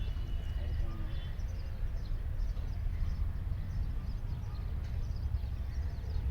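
Steady low outdoor rumble with faint, scattered high chirps from birds.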